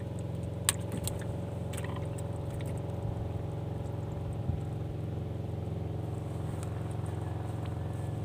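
Small boat engine running steadily with an unchanging low drone, and a few sharp clicks in the first two seconds.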